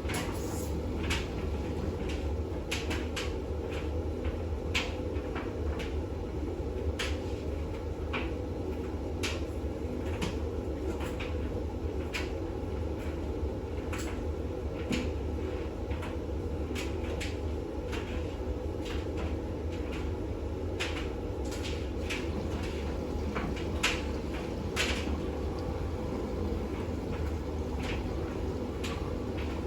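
Bosch WAX32GH1 front-loading washing machine in its final rinse, the drum turning a full load with a steady motor hum and irregular light clicks and knocks.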